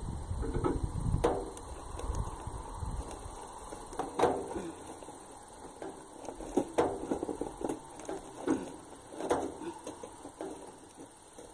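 Scattered knocks and rattles from hands working at a tarp-covered live trap, about half a dozen irregularly spaced, with a low wind rumble on the microphone for the first few seconds.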